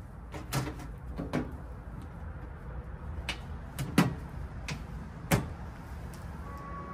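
Several sharp knocks and clicks at uneven intervals, the loudest about four seconds in, over a steady low hum.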